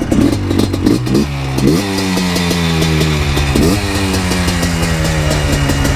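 ATV engine revving three times in short, sharp climbs of pitch, each settling back to a steady, slowly falling run.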